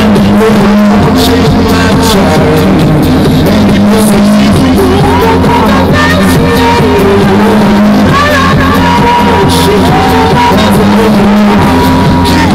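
Live electronic music played loud through a stage PA: a looped backing with sustained bass notes and a man singing into a microphone over it, his voice gliding in long held notes.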